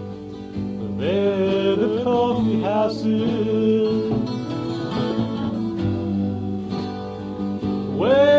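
Music: a folk-rock song's break without lyrics, strummed guitar over bass and sustained chords, with a melody line that slides up into long held notes about a second in and again near the end.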